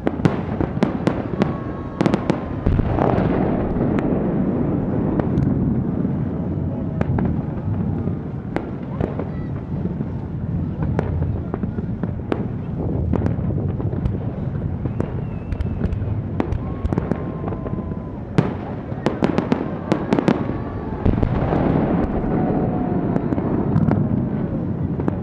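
Fireworks display: a continuous run of sharp bangs and crackles at irregular intervals over a dense low rumble of many bursts.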